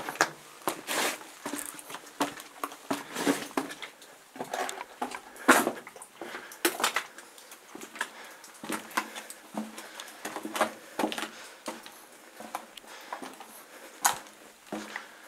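Footsteps crunching and scuffing on the rough, gritty rock floor of a lava tube cave, in an irregular walking rhythm, with a louder crunch about five and a half seconds in.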